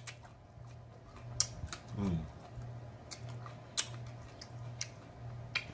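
A person chewing food with irregular wet mouth clicks and lip smacks, and a short hummed "mm" about two seconds in.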